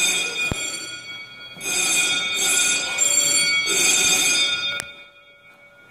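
Firehouse alert alarm ringing loudly, several high steady tones together. It dips briefly about a second in, swells again and cuts off near the end. There is a sharp click about half a second in.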